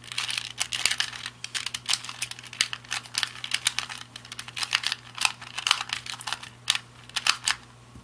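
2x2 Rubik's cube being scrambled by hand: quick plastic clicking of its layers turning, several clicks a second, stopping shortly before the end.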